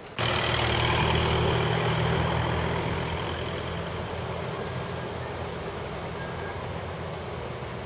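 A truck engine running, cutting in suddenly at the start and then growing gradually quieter.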